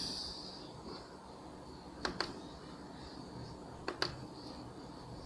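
Faint hiss from the speaker with nothing playing from its SD card, and a few light clicks about two seconds in and again near four seconds as the unit is handled.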